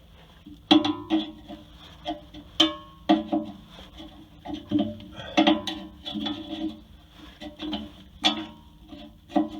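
Background music of plucked-string notes, like a guitar, struck in an uneven rhythm.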